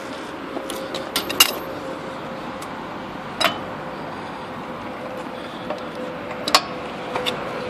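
Breaker bar and socket working the wheel nuts of a steel wheel loose: a handful of sharp metallic clicks and clinks scattered through, the loudest about a second and a half in, over a faint steady hum.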